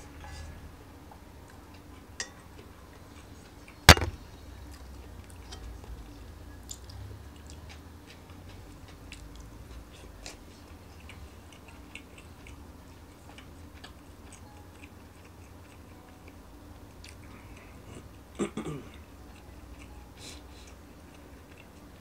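Close chewing with small scattered clicks of chopsticks and utensils against a frying pan, a sharp loud knock about four seconds in and a short clatter of knocks near the end.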